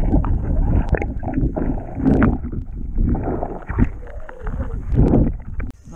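Muffled underwater sound of water sloshing and gurgling around a submerged camera, swelling and fading unevenly, with a few sharp clicks.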